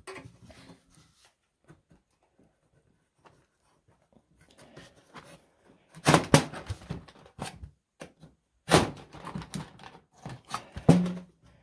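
A folding knife blade jabbing and scraping at the tinplate lid of a large steel can, in two bouts of sharp metallic clicks and scrapes starting about six seconds in and again near nine seconds. The blade is failing to cut through the lid.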